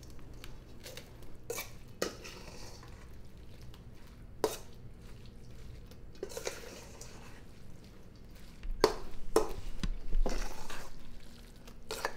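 A utensil stirring cooked arborio rice with tomato sauce and pecorino in a bowl: soft scraping and squelching, with scattered sharp knocks of the utensil against the bowl. A louder, busier stretch of handling comes about nine seconds in.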